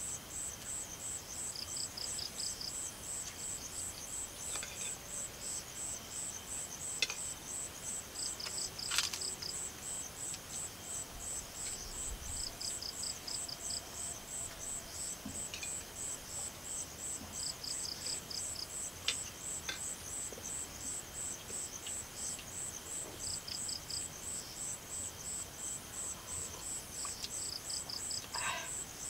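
Night insects chirping: one gives a steady, high-pitched pulse about twice a second, and another gives a short rapid trill every four or five seconds. A few light clinks of tableware come through now and then.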